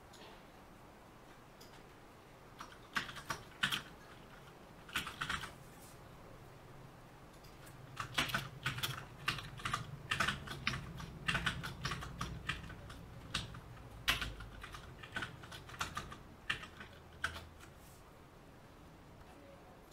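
Typing on a computer keyboard in irregular bursts of keystrokes, starting about three seconds in and stopping a couple of seconds before the end.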